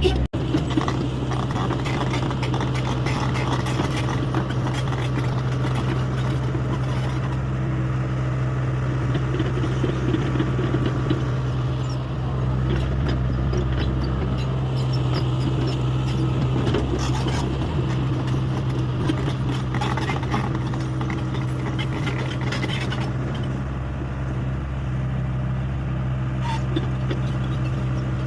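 Diesel engine of a Hyundai 85A excavator running steadily at working speed while digging, with occasional knocks and scrapes.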